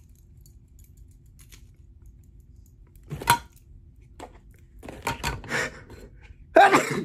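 A few sharp clicks and knocks of small makeup items being handled, then a loud single sneeze near the end.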